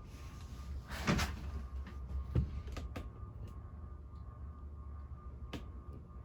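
Fanco spinner ceiling fan running on low speed with a steady low motor hum. A brief rustling burst comes about a second in, and a few sharp knocks or clicks follow.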